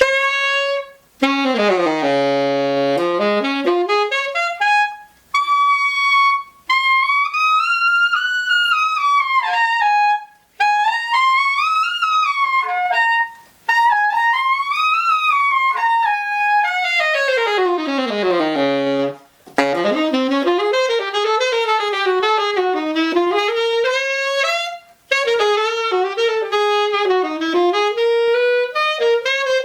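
Alto saxophone, a 1932 Conn 6M, played in quick runs and arpeggios that sweep down to the bottom of the horn and back up, with a few short breaks between phrases. The player is trying out an old, used Vandoren reed.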